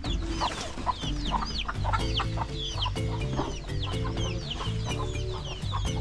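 Domestic chicks peeping, a rapid stream of short high falling peeps, over soft background music.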